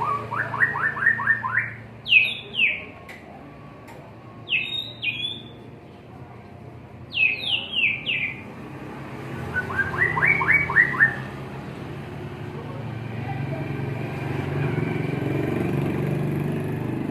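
White-rumped shama singing in short separate phrases: a quick run of about six rising notes, a few clear falling whistles, and another rising run about ten seconds in. In the second half the song stops and a low rumble builds up underneath.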